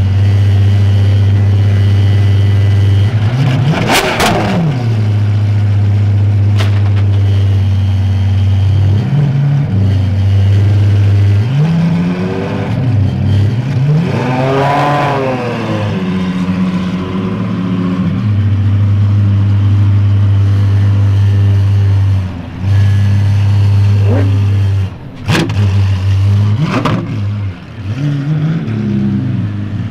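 Apollo Intensa Emozione's naturally aspirated 6.3-litre V12 idling and being revved several times. There is a sharp rev about four seconds in, a longer rev that rises and falls around the middle, and quick revs near the end with a few sharp cracks. The car pulls away at the end.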